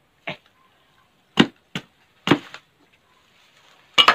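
Small axe chopping the tough skin off a young jackfruit: sharp, separate chops at uneven intervals, with two strikes in quick succession near the end.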